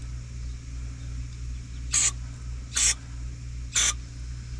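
Aerosol can of brake cleaner sprayed through its straw into the hub's bolt holes, in three short hissing bursts about a second apart, starting about two seconds in.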